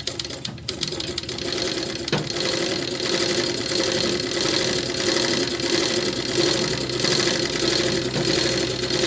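Overlock sewing machine stitching, driven by a foot treadle pedalled in reverse: a fast, even run of needle strokes over a steady hum. It picks up speed over the first couple of seconds, then runs steadily.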